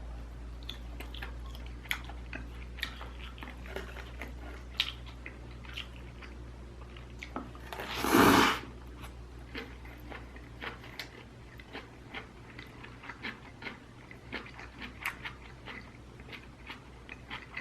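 Close-up chewing and mouth sounds of a person eating, with many small wet clicks and soft crunches; about eight seconds in comes a louder rush of noise lasting about half a second.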